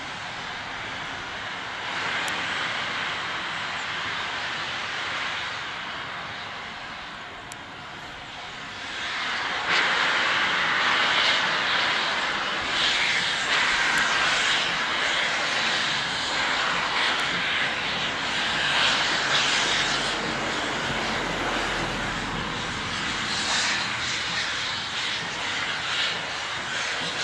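Steam locomotive 73156, a BR Standard Class 5, sending out a loud, steady hiss of escaping steam. The hiss grows louder about ten seconds in.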